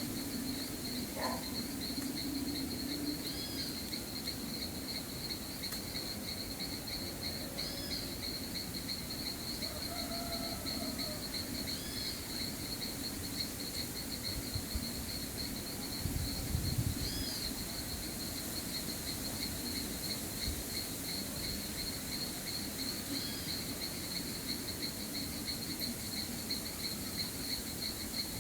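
Steady chorus of insects trilling, cricket-like, with a short arching call repeating about every four seconds over it. A brief low rumble comes a little past the middle.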